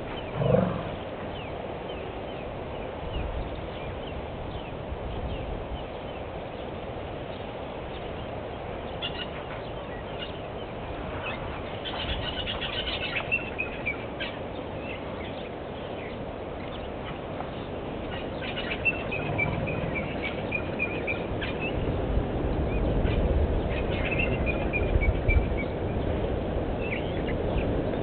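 Open bush ambience with birds calling now and then in high chirping phrases, several of them falling in pitch. A short, loud rising sound about half a second in is the loudest moment.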